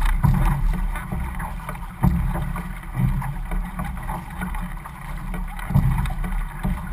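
Water splashing and rushing along an outrigger canoe's hull as the crew paddles, swelling about once a second with the strokes, with wind buffeting the microphone.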